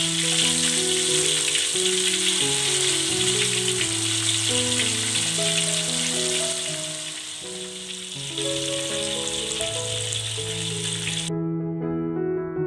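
Chicken drumsticks deep-frying in hot oil in a wok, a steady sizzle, with background music of held keyboard-like notes over it. The frying cuts off suddenly near the end, leaving only the music.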